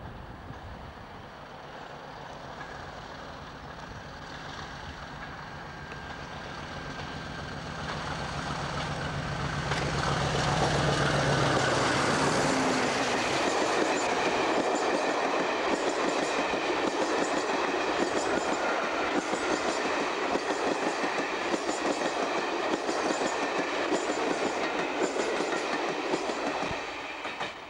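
Diesel locomotive approaching and passing at speed, its engine note growing louder until it goes by about twelve seconds in. Its train of passenger coaches follows, rushing past with a steady clickety-clack of wheels over the rail joints. The sound cuts off suddenly near the end.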